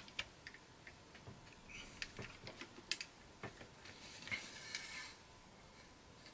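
Faint scattered clicks and taps of small plastic scale-model parts being handled and pressed onto a model car chassis, with a short rustle after about four seconds.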